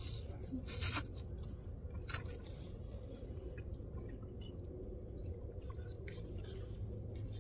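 People slurping and chewing noodles: a few short, sharp slurps, the clearest about one and two seconds in, over a steady low rumble.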